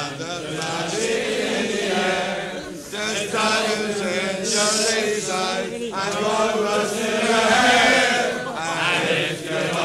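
A crowd of football supporters singing a song together, many male voices in a loose chorus.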